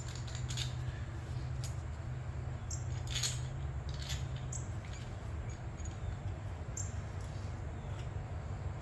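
Scattered light clicks and taps of small parts being handled, over a steady low hum.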